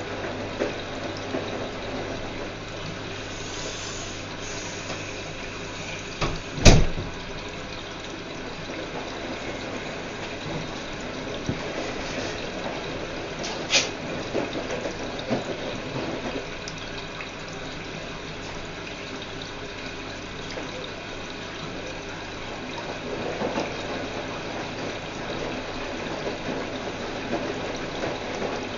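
Whirlpool washing machine with water running steadily into it through the inlet, filling the drum. A single sharp knock comes about seven seconds in, and a smaller click about fourteen seconds in.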